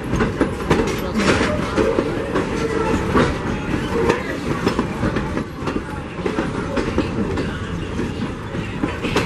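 Wooden passenger coaches rolling past at close range, their steel wheels clicking and clattering over the track with a steady rumble.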